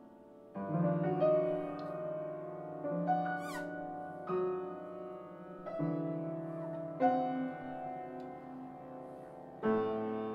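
Background music: piano chords struck every second or two and left ringing, with a brief electronic sweep about three seconds in.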